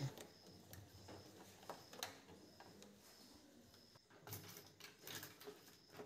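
Near silence, with a few faint, light clicks of hands handling the washing machine's plastic pressure hose and panel parts.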